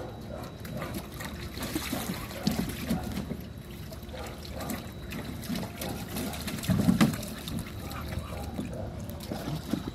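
Shallow water sloshing and splashing in a plastic kiddie pool as two dogs wade and play in it, in uneven bursts, loudest about seven seconds in.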